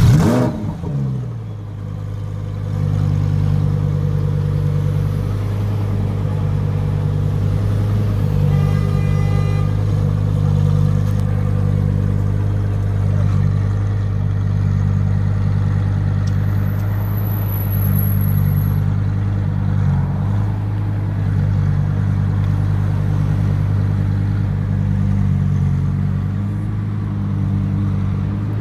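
Lamborghini Huracán Performante's 5.2-litre V10 giving a sharp rev right at the start, its pitch falling quickly back to a steady idle that runs on.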